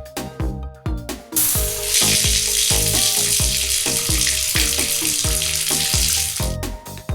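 Background electronic music with a steady beat. A loud hissing noise, like frying or spraying, starts about a second in and cuts off near the end.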